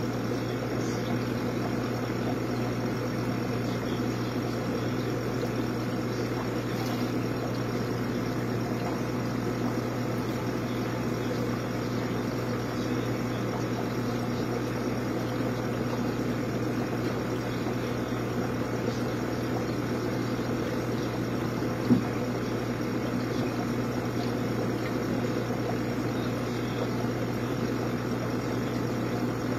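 Steady low electrical hum of running aquarium equipment, with one brief click partway through.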